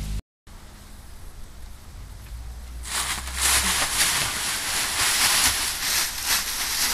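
Dry fallen leaves crunching and rustling under scuffling feet and bodies, quieter at first and loud from about three seconds in.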